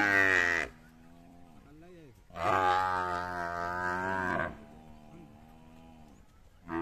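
Cattle mooing: a long moo that ends within the first second, another of about two seconds in the middle, and a third that starts at the very end, with softer, lower lowing between them.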